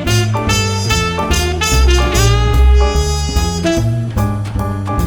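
Upbeat jazz intro music with saxophone and brass over a walking bass and drums.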